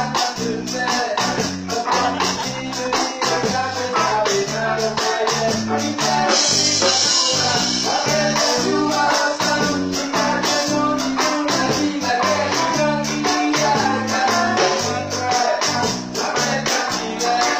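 Loud live music played through a PA sound system: a fast, even percussion beat over a pulsing bass line, with a melody on top.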